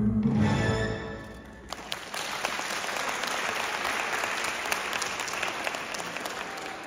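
Routine music ends about a second in, then audience applause: steady clapping from about two seconds in.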